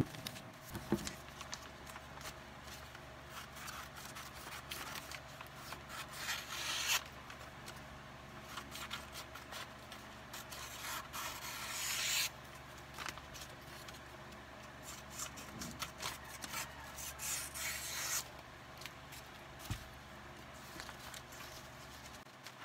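Sheets of paper stickers being handled, lifted and slid over one another and across the desk: soft, irregular paper rustling and scraping with small ticks, swelling louder a few times.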